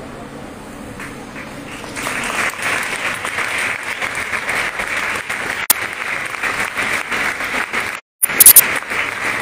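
Audience applauding in a hall, the clapping swelling about two seconds in and carrying on steadily. Near the end the sound cuts out for a moment, followed by a few sharp, loud clicks.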